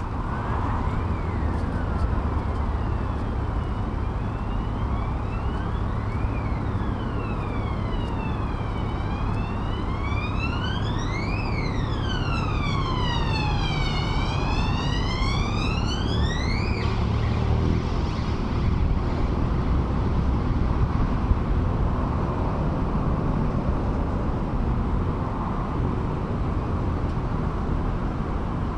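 Emergency-vehicle siren wailing slowly up and down, about every two and a half seconds, over a steady rumble of town traffic. The siren cuts off suddenly about 17 seconds in, leaving the traffic rumble.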